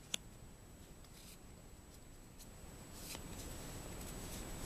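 Faint handling of Magic: The Gathering cards: a light click near the start, then a few soft scattered rustles and slides.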